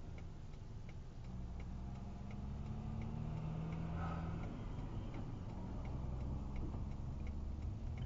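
A vehicle's turn-signal indicator clicking steadily in the cab, about one and a half clicks a second. Under it, a tractor-trailer's engine passes close by and grows louder after about a second.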